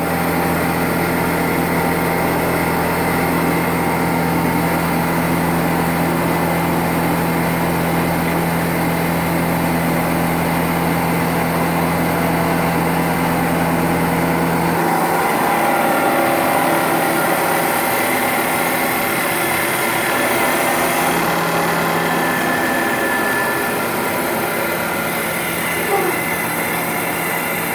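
TC650E CNC wood lathe running steadily, a mix of machine noise and steady tones; a deep low hum cuts out about halfway through while the rest keeps running.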